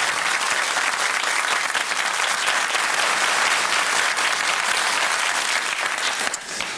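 Studio audience applauding steadily, then dying away near the end.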